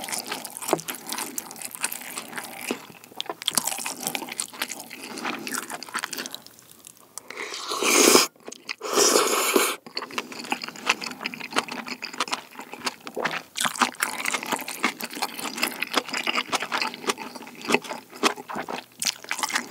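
Close-miked chewing of sauced, crisp-fried tangsuyuk pork with crunchy vegetables, full of small crunches and wet mouth sounds. About eight seconds in there are two loud, noisy bursts of about a second each.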